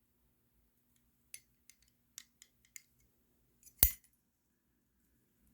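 Zippo Armor lighter being handled, with a few light metallic clicks, then one sharp metallic clink of the flip-top lid snapping, a little under four seconds in.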